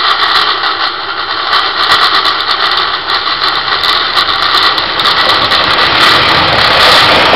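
Taiwan Railways DR1000 diesel railcar passing close by, its underfloor diesel engine running under dense wheel-on-rail noise with many sharp clicks. It grows louder as the cars come alongside.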